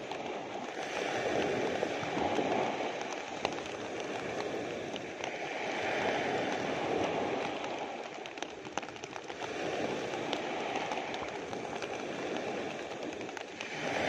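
Small ocean waves breaking and washing up the beach, swelling and easing about every four seconds, with steady rain and scattered drips ticking close by.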